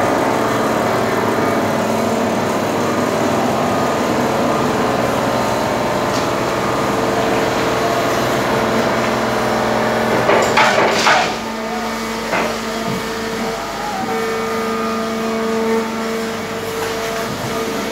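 Plastic injection moulding machine running, a steady mechanical hum with a constant tone. About ten seconds in comes a short, louder clatter, after which the machine runs a little quieter.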